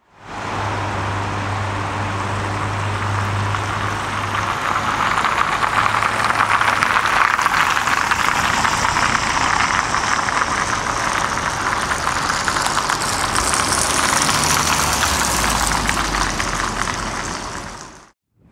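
Vehicle engines idling with a steady low hum over a constant rush of road noise; the sound fades in at the start and fades out near the end.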